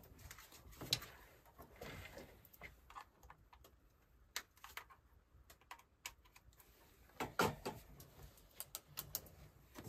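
Faint, scattered clicks and handling noises from hands working at a ceiling light's wiring, a few sharp ticks bunched about a second in, again after seven seconds and near the end.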